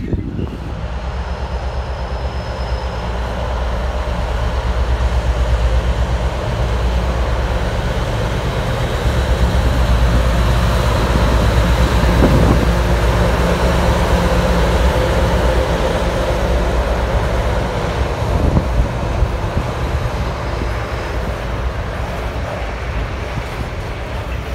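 Class 60 diesel-electric freight locomotive passing close by with a train of hopper wagons. The steady low drone of its diesel engine builds to its loudest about halfway through, then eases as the wagons roll past with a rumble from the wheels and a couple of sharp clanks.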